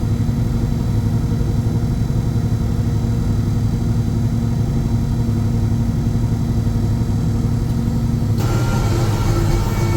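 Tractor engine running steadily with a low drone. About eight seconds in, a higher hiss and a thin whine join in.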